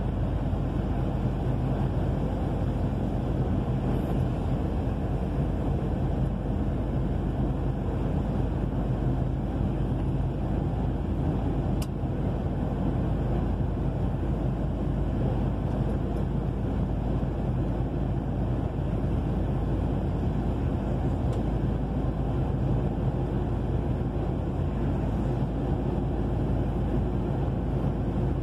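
Steady drone inside a truck cab cruising on a wet highway: the truck's engine hum under a constant hiss of tyres and road noise.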